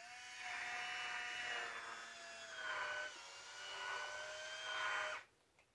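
Electric wine opener's small motor whining as it turns its corkscrew in a wine bottle's cork. The whine swells and eases, dips slightly in pitch about three seconds in, and cuts off about five seconds in.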